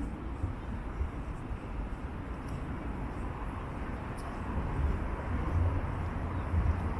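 Town-centre street ambience: a steady low rumble of road traffic, growing a little louder from about five seconds in as a vehicle draws near.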